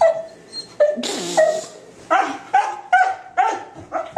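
Dog whining and yelping in short, high-pitched cries, coming about three a second in the second half, with one breathy, rasping burst about a second in: the excited crying of a dog greeting an owner it has missed.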